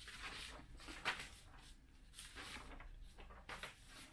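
Sheets of printer paper rustling and shuffling as they are leafed through and lifted, faint, in soft irregular strokes.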